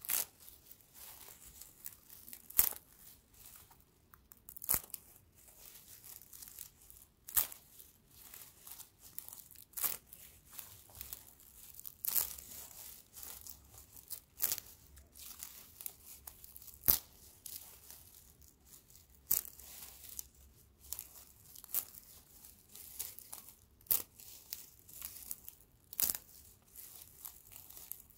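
Dry grass stems being pulled apart and split by fingers: a soft, continuous crackling and rustling of brittle stalks, broken by a sharp snap or tear about every two to three seconds.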